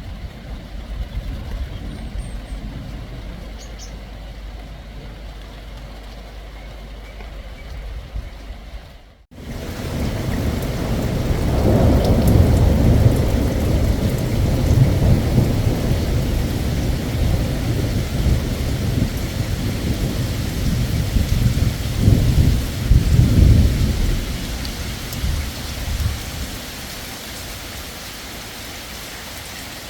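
Rain falling steadily in a thunderstorm, with a long roll of thunder that swells about ten seconds in, rumbles on for some fifteen seconds and fades near the end. The sound drops out briefly just before the thunder.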